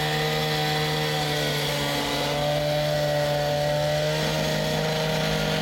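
Gas-powered two-stroke concrete cut-off saw running at high revs, cutting into the old concrete slab. A steady high-pitched engine whine with grinding noise, its pitch shifting slightly as the blade takes the load.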